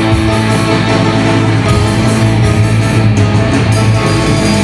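Live rock band playing loud, amplified electric guitars and bass in a steady, dense wall of sound, heard from the audience in a large hall.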